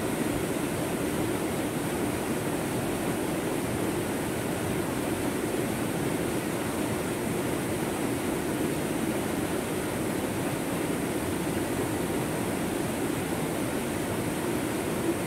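Steady rushing water of a small waterfall tumbling over rocks into a fast-flowing stream.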